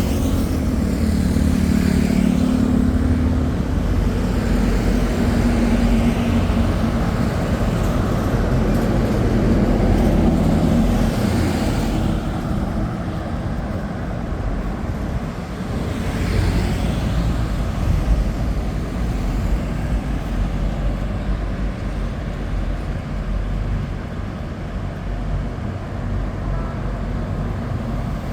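Steady street traffic, with engines and tyres of passing cars and motorbikes rising and falling as vehicles go by.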